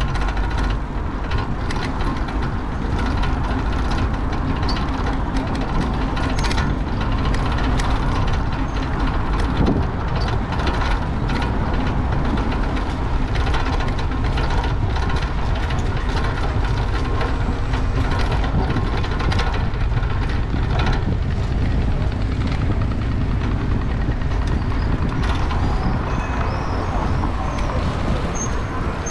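Steady wind rush and rolling noise on a bicycle-mounted action camera's microphone while riding a rusty bike, with scattered small clicks and rattles.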